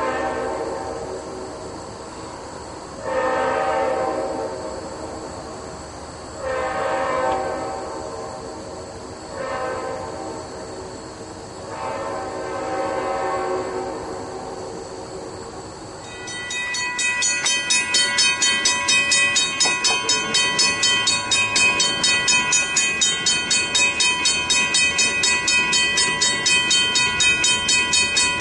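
Approaching freight locomotive's Leslie RS5T air horn sounding a series of long blasts with one short one, the standard warning for a grade crossing. From about sixteen seconds in, a grade-crossing warning bell rings rapidly and steadily at about three strokes a second.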